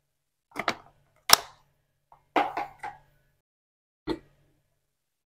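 Spoon clinking against ice cubes in a glass, the sharpest clink about a second in, then a short clatter and a single knock near the end as plastic things are set down on a wooden board.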